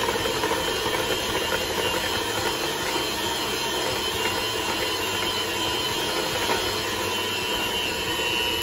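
Electric hand mixer running steadily, a constant motor whine as its beaters work flour into chocolate chip cookie dough in a plastic bowl.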